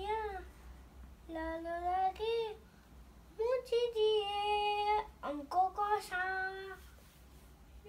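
A young girl singing in a sing-song voice, in four drawn-out phrases with short pauses between them.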